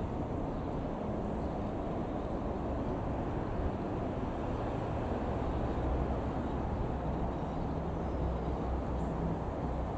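Steady low drone of a Comco Ikarus C42 FB100 microlight's Rotax 912 flat-four engine and propeller, heard from the ground as the aircraft flies overhead.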